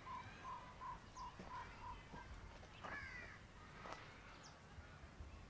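Ford Endeavour's powered tailgate sounding its warning chime as it closes: short, evenly spaced beeps at one pitch, about three a second, stopping a little over two seconds in. A crow caws twice about three and four seconds in.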